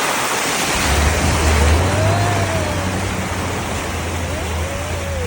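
Vehicle driving: a steady rush of road and wind noise, with a low engine hum that comes in about a second in.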